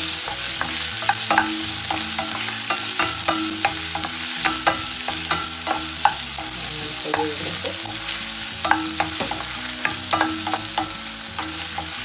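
Chopped onions sizzling in oil in a stainless steel frying pan, stirred with a spatula that scrapes and clicks against the pan many times.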